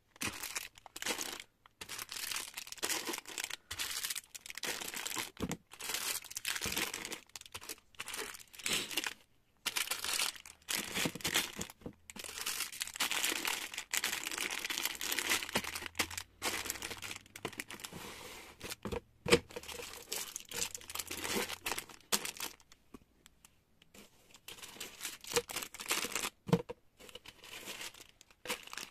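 Small plastic bags of fuse beads crinkling and rustling as they are handled and shifted around in a cardboard box, the sound coming and going with short silent breaks.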